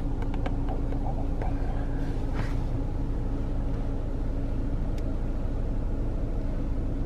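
Steady low rumble and hum of a car heard from inside the cabin, with a few faint clicks near the start and a brief soft rustle about two and a half seconds in.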